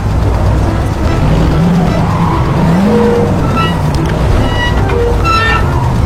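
Race car engines running, the engine pitch rising and falling, with tyre squeals over background music.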